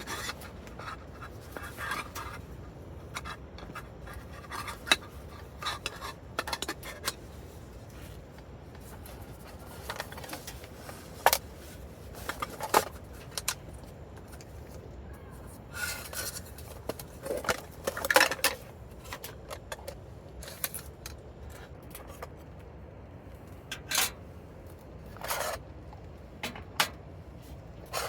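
Objects being handled at close range: scattered clicks, scrapes and light clatters, thickest about halfway through, over a steady low background.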